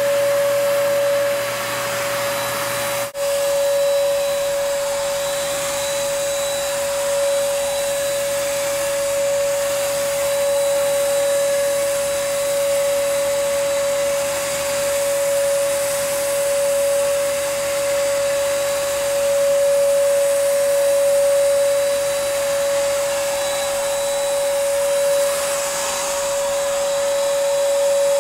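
HVLP turbine paint sprayer running steadily while spraying Plasti Dip, a constant whine over the hiss of air. The sound drops out for a moment about three seconds in.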